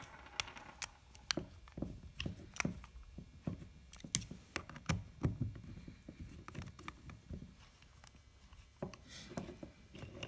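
Scattered light metal clicks and taps of a hand tool working two bolts loose from the bracket of a piston filler's fill head, with the metal parts being handled.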